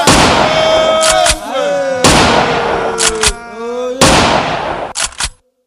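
Three loud bangs about two seconds apart, each trailing off slowly, with voices sliding up and down in pitch between them. The sound cuts off abruptly shortly before the end.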